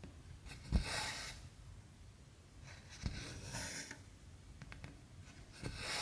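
Cotton embroidery floss drawn through aida cross-stitch fabric: three hissing pulls about two and a half seconds apart, each starting with a soft thump as the needle and hand meet the cloth.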